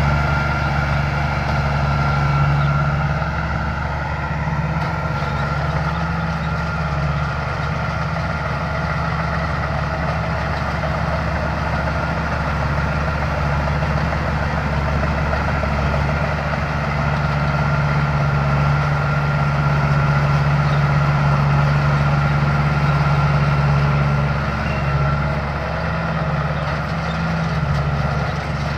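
Combine harvester's Mitsubishi 6D16 six-cylinder turbo-diesel engine running steadily: a loud low drone with a thin steady whine above it. The drone eases briefly a few seconds in and again near the end.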